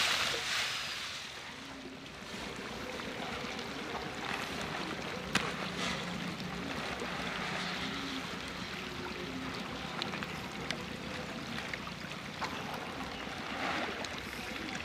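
Steady watery splashing and churning of a dense shoal of baby magur catfish at the pond surface, feeding on freshly scattered feed, with a few faint clicks.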